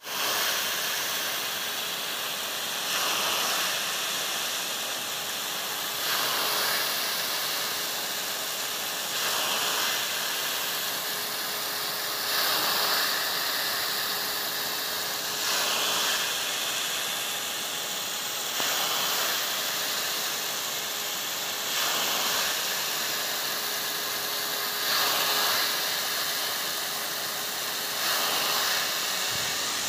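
TAST JET 50 gear-driven rain gun sprinkler throwing a high-pressure water jet: a steady rushing hiss that swells briefly about every three seconds. A faint steady tone runs under it.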